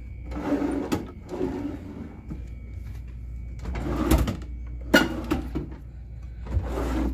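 Wooden dresser drawers sliding open and shut, with several knocks as they bump home, the loudest about five seconds in.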